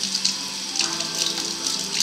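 A thin stream from a kitchen tap running steadily into a stainless steel sink, with background music playing over it.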